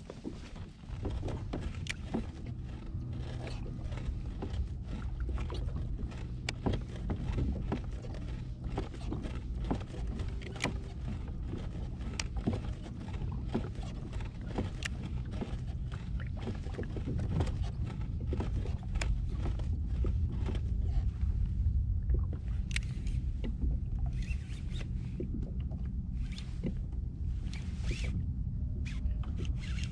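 Hobie Outback kayak under way on the water: a steady low rumble with frequent irregular clicks and taps.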